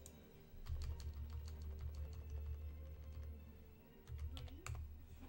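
Computer keyboard typing: a run of quick, uneven key clicks as a web address is typed into a browser, over a low rumble.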